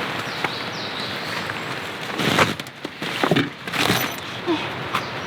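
Steady rain, with several short knocks and scrapes over it, the loudest a couple of seconds in.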